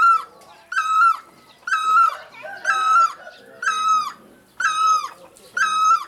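Great barbet calling: a loud, clear note repeated just under once a second, about seven times in a row, each note dropping in pitch at its end.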